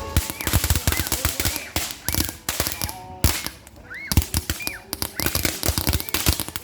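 A string of firecrackers popping in rapid, irregular bursts, like gunfire, with a couple of brief lulls partway through.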